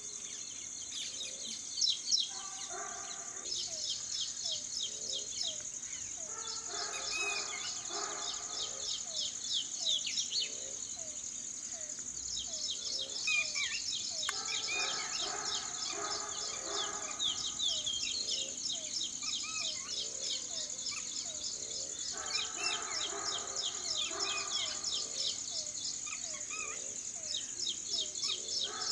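Outdoor wildlife chorus: a steady, high insect drone with many small birds chirping rapidly over it, and a lower call repeated about twice a second in long stretches. Two brief bumps stand out about two seconds in.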